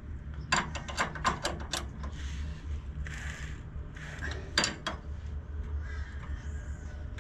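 Hand ratchet wrench clicking in quick runs while turning a nut on a car's front suspension, with short raspy scrapes between the runs.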